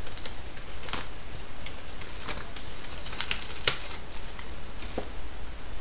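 Scattered light clicks and ticks, several in quick succession around the middle, over a steady low hum.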